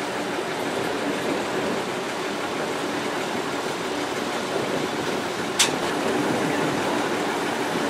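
Boat engine running steadily, heard on board, with one sharp click about five and a half seconds in.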